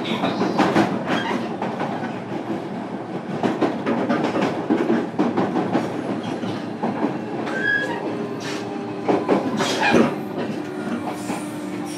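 Running noise inside a JR Kyushu 305 series electric train's motor car at speed: a dense rumble from the wheels and bogies, broken by scattered knocks and clicks as the wheels cross rail joints. A steady low tone settles in during the second half.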